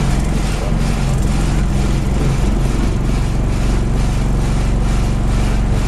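Alexander Dennis Enviro 200 Dart bus engine running steadily, with a loud, regular ticking over the engine hum.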